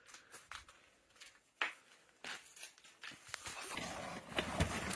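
Cardboard boxes and packing paper being handled: scattered knocks and clicks, then rustling and scraping of cardboard flaps that grows louder over the last couple of seconds.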